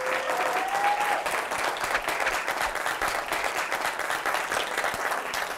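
Audience applauding, many hand claps blending into a steady patter.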